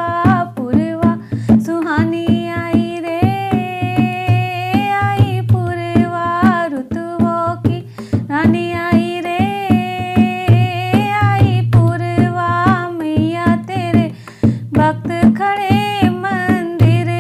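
A woman singing a Hindi Devi bhajan while playing a dholak with her hands, a running rhythm of drum strokes under the sung melody.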